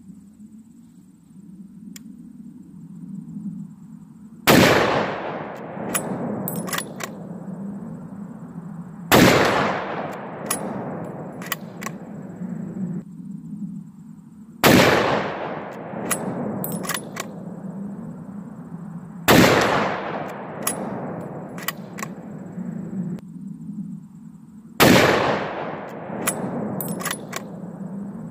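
A .416 Ruger bolt-action rifle (Ruger Guide Gun) fires five heavy shots about five seconds apart. Each is a sharp blast followed by a long rolling echo that dies away over several seconds, with a few short metallic clicks a second or two later as the bolt is worked.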